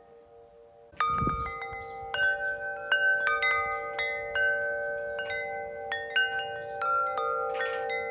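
Chimes ringing: bright tones struck at irregular moments over a steady held tone, coming in suddenly about a second in with a brief low thump.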